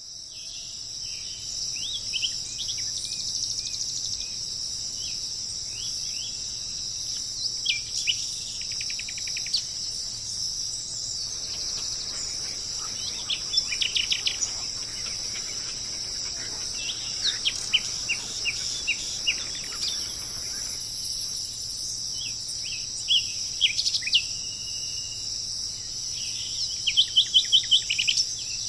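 A steady high-pitched insect drone runs throughout, with birds chirping over it at intervals in short calls and quick runs of notes. A fast series of about six sharp notes near the end is the loudest part.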